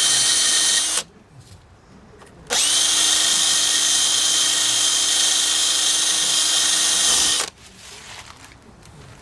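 Handheld power tool spinning at a steady speed, cleaning the bead seat of a wheel rim so the tire will seal. It runs for about a second, stops, then starts again about two and a half seconds in, spins up quickly and runs steadily for about five seconds before cutting off.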